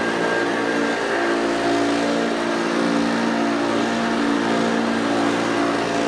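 Hoover Junior U1104 upright vacuum cleaner running as it is pushed over carpet: a loud, steady motor hum over a rush of air, its pitch wavering slightly midway.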